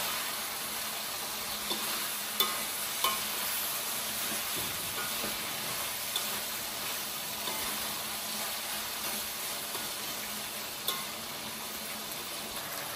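Pork pieces frying and sizzling in soy sauce in a wok while being stirred and turned, a steady hiss with a few sharp clicks of the fork and spatula striking the pan.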